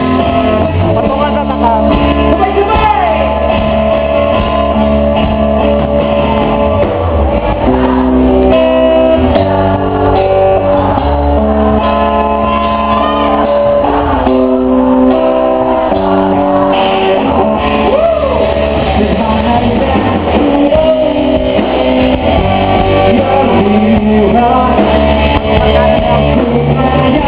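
Live band playing a song through a PA: a singer's voice over guitar and bass, loud and continuous.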